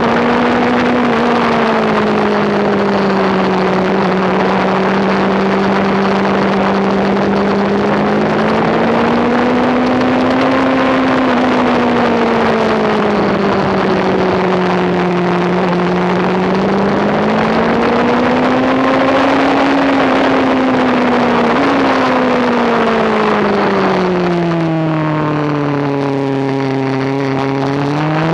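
Motorcycle engine running hard on a racetrack at speed, its revs rising and falling in long slow swells through the corners, under a heavy rush of wind on the microphone. Near the end the revs drop and then climb again.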